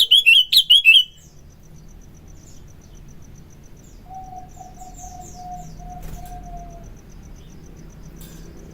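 Sooty-headed bulbul (kutilang) giving a loud burst of rapid chattering, whistled notes in the first second, then falling quiet. Faint steady insect ticking carries on behind it. About halfway through, a low series of about six short, even notes sounds from another bird.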